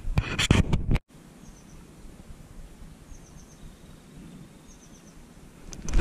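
Wind buffeting the microphone for about a second, then cutting off. After that comes a quieter open-air background in which a small bird repeats a quick, high three-note chirp three times.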